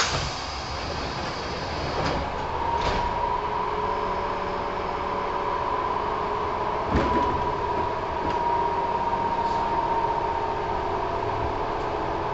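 Kintetsu 1000 series commuter train's sliding doors shut with a thump, then the train gets under way: a steady whine sets in about two seconds later over the rumble of the car, with a few short clanks.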